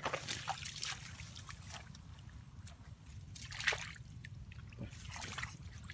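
Hands stirring and scooping in a shallow muddy pool of water: irregular small splashes and trickles, with one louder splash about three and a half seconds in.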